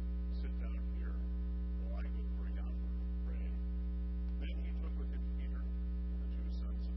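Steady electrical mains hum, a low drone with a ladder of higher buzzing overtones, with a faint voice speaking underneath it.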